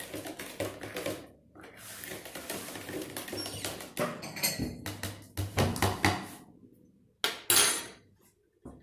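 Kitchen dishes and utensils clinking and clattering as a drink is mixed, with two louder knocks about seven seconds in.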